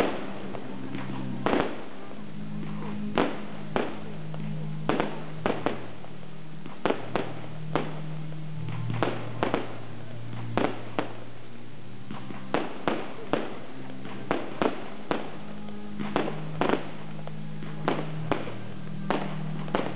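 Aerial fireworks going off in an irregular, rapid series of sharp bangs and pops, often two or three a second. Music with sustained low notes plays underneath.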